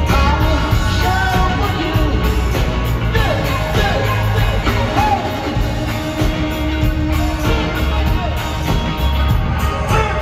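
Live rock band playing loud, with a male lead vocalist singing over bass, electric guitar and drums, recorded from within the arena crowd.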